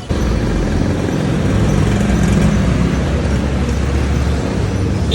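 Motor vehicle engine running close by: a loud, steady low rumble with traffic noise on a street.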